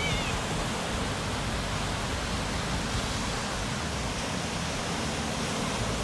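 Steady rushing of water, an even noise with no distinct splashes.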